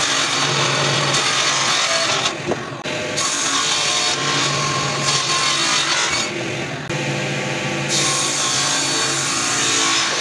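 Table saw cutting through white-finished board panels, a loud steady whine of blade in material. The cutting noise eases twice, about two and a half and six and a half seconds in, then picks up again as the next pass goes through.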